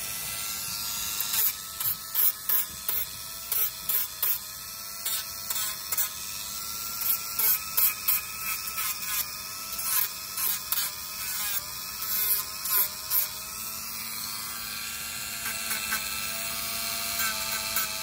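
Dremel rotary tool with a sanding band running with a steady high whine, its pitch wavering slightly, as the spinning drum is tapped repeatedly against a dog's toenail, giving many short bursts of grinding a few times a second.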